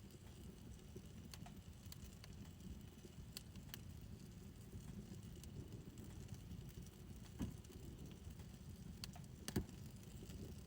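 Wood fire in a backyard fire pit burning quietly: a low steady rumble with scattered faint crackles, and two louder sharp pops in the second half.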